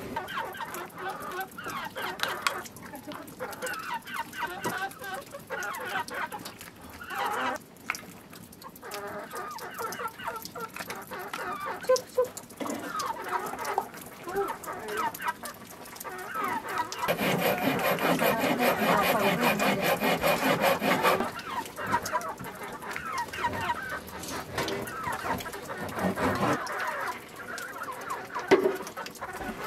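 Chickens clucking and calling, with short calls throughout and a louder, denser stretch lasting about four seconds past the middle.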